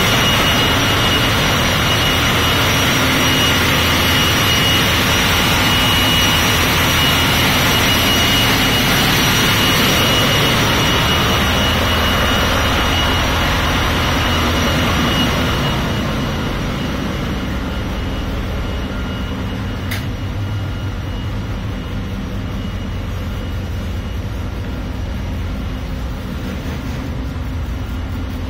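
Loud, steady machinery noise of a container ship's engine room, with a high steady whine over a dense hum. About halfway through it drops to a quieter, duller hum, heard from inside a closed room off the engine room, with a single click about two-thirds through.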